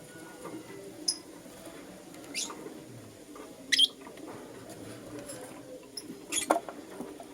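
Young lutino lovebirds giving short, sharp, high chirps that drop in pitch, about one a second. The loudest come near the middle and about six and a half seconds in.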